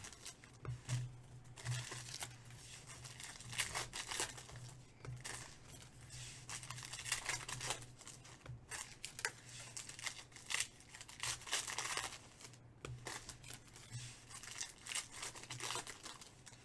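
Foil wrappers of Panini Chronicles baseball card packs crinkling and tearing in the hands as the packs are opened, an irregular run of sharp crackles.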